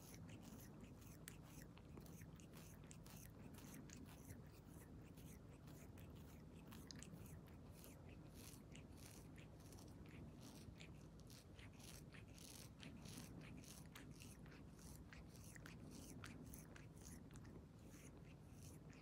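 Domestic cat grooming, licking its paw and fur: a faint, irregular run of soft wet tongue clicks, a few each second, over low room hum.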